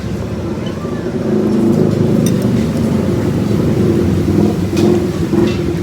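A motor vehicle engine running steadily, with road traffic noise.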